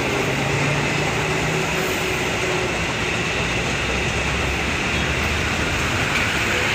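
Train running past on the line: a steady, continuous rumble and rush of noise with a faint low hum.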